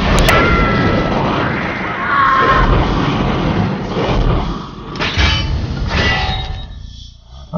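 Cartoon destruction sound effects: a crane swinging a wrecking ball, with heavy rumbling crashes and a few short metallic squeals. The din dies away about seven seconds in.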